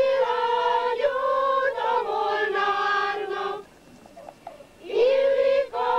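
Choir singing slow, long held notes, stopping for about a second past the middle before the next phrase.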